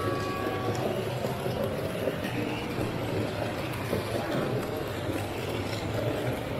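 Steady background din of a busy exhibition hall: indistinct crowd chatter with a constant low hum and no single clear voice.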